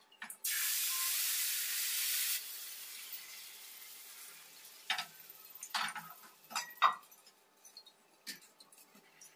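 A hot non-stick tawa sizzles loudly for about two seconds as chakuli pitha batter is poured onto it, and the hiss then dies away. A few light clinks and knocks of metal utensils and the pan lid follow.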